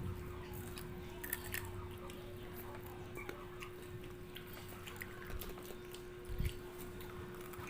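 Chewing and small mouth clicks of someone eating maruya (fried banana fritters), over a steady low hum, with one low thump about six seconds in.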